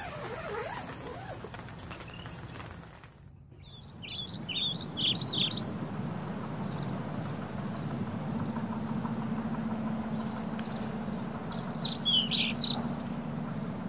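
Birds chirping outdoors in the morning, two short clusters of quick high chirps over a steady low hum. Before that, a steady high-pitched whine cuts off about three seconds in.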